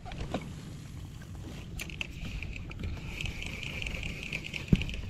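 Shimano Stradic 5000 spinning reel being cranked, a fast whirring rattle starting about two seconds in, over a steady low wash of water and wind. A single knock near the end.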